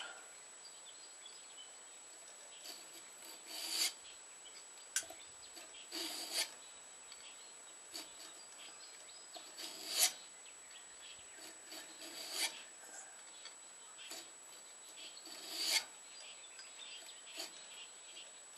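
A hand file cutting a notch out of a metal knife part with slow strokes, about a dozen of them, spaced unevenly.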